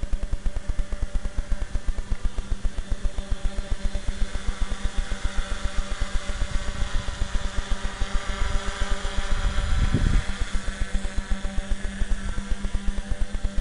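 Small RC tricopter's three electric motors and propellers whining in flight, the pitch steady and growing louder around the middle as it passes close overhead. Under it runs a rapid low buffeting on the microphone, with a stronger surge about ten seconds in.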